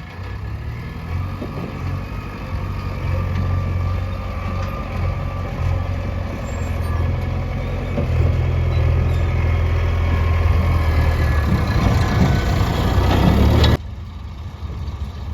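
Heavy diesel machinery engine running and working under load, its low drone building in the second half. About fourteen seconds in, the sound drops abruptly to a quieter engine.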